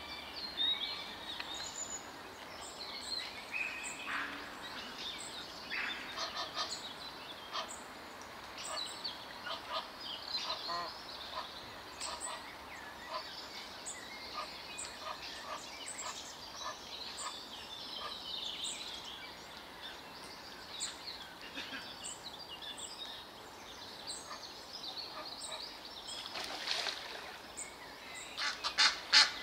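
Small birds chirping and calling over the lake throughout. Near the end a waterfowl starts a rapid run of loud calls, about three a second, getting louder.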